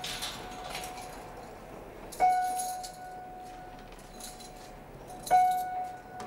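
A single high piano note struck twice, about three seconds apart, each one ringing on and dying away slowly. Light footsteps on a hard floor in the first second.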